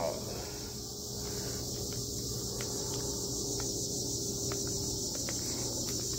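Steady high insect trilling of crickets, with a faint steady hum under it and a few light clicks, like a cardboard firework cake box being handled.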